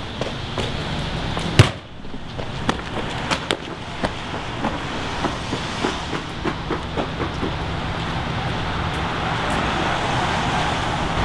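Footsteps on wet asphalt, about two a second, over a steady outdoor hiss that grows louder in the last few seconds. A single sharp knock comes about one and a half seconds in.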